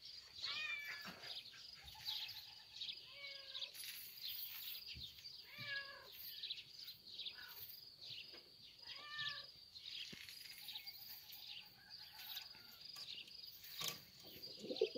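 A cat meowing faintly several times, short arching calls a few seconds apart.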